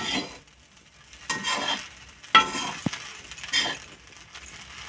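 A slotted metal spatula scrapes and stirs semolina and grated coconut roasting in ghee in a metal kadhai. There are a few short scraping strokes, starting about a second in.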